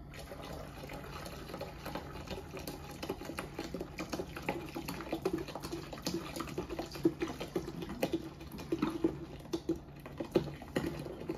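Beer poured from an upturned 40-ounce glass bottle splashing into a stockpot that holds a little water: an uneven stream of splashes and spatters.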